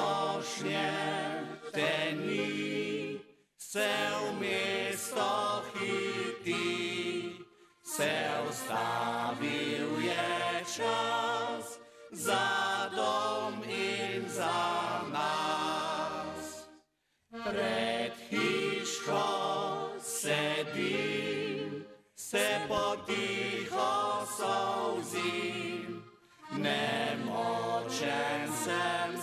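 A small mixed vocal group, men's voices and a woman's, singing a Slovenian folk song in harmony. They sing phrase by phrase, with short breaks between the lines.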